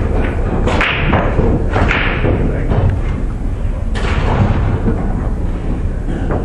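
A steady low rumble with three sharp thuds: about a second in, near two seconds and at four seconds.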